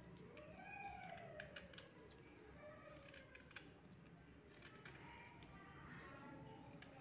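Faint scraping and clicking of a kitchen knife peeling the skin off a raw green mango, in short irregular strokes.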